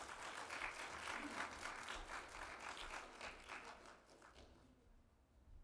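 Congregation applauding: many hands clapping together, dying away about four to five seconds in.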